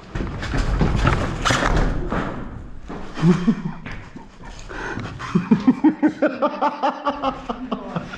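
Rustling and thudding of a player moving, then a man laughing in quick repeated bursts near the end.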